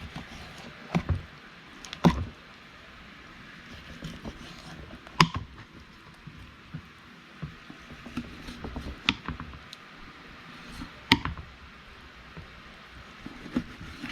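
Knife cutting a whole pompano on a cutting board, with six or so sharp knocks and taps a few seconds apart as the blade strikes the board.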